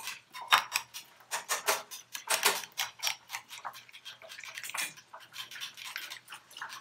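Spoon stirring sauce in a glass bowl, clicking and scraping against the glass in quick, irregular taps, several a second.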